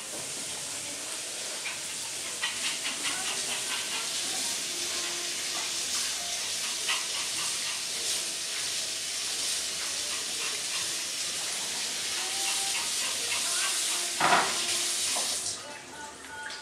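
A steady hiss that cuts off suddenly near the end, with faint scattered clicks over it and a brief louder knock just before it stops.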